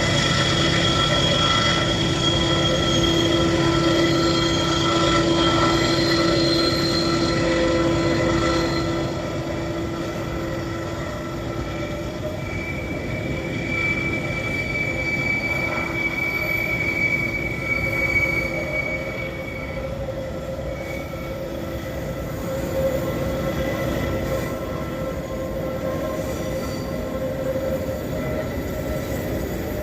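Freight train climbing a mountain grade: diesel-electric locomotives working hard under full throttle in a steady drone with the high squeal of train wheels over it. The engine sound drops off about nine seconds in while the rolling and squealing carry on.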